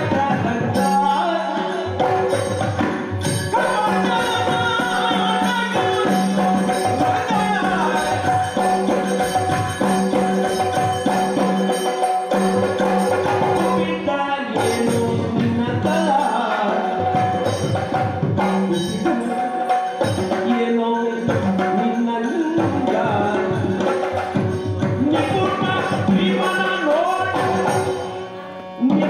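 Yakshagana ensemble music: chende and maddale drums beating in dense, rapid strokes over a steady drone, with a metallic jingle of bells. The music drops away briefly near the end.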